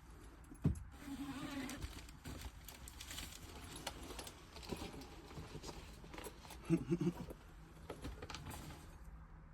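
Small objects being handled: scattered clicks, knocks and rattles, with a short cluster of low tones about seven seconds in.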